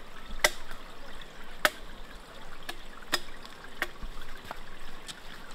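A blade chopping at a tree branch to trim it into a walking stick: a series of sharp, irregular knocks about a second apart over a steady faint hiss.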